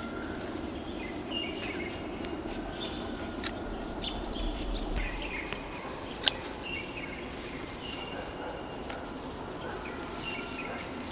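Steady background noise with birds chirping now and then: short, high calls a few seconds apart. A few sharp clicks or knocks, the loudest about six seconds in.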